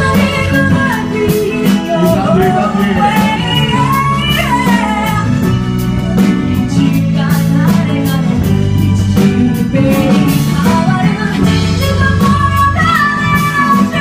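A live pop-rock song played by a band with guitar and drums, with a sung or lead melody gliding above a steady bass line.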